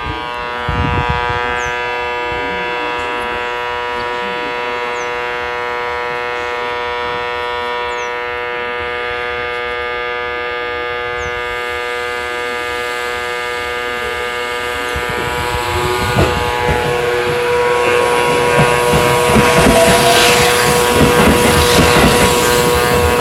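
Sanyo Electric Railway 6000 series electric train with a steady electrical hum while standing. About fifteen seconds in it starts to pull away: a rising whine from its inverter-driven traction motors, and a growing rumble of wheels on rail that gets louder toward the end.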